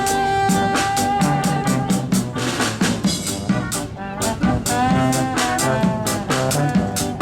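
Instrumental music: a drum kit keeps a busy beat under held, horn-like notes.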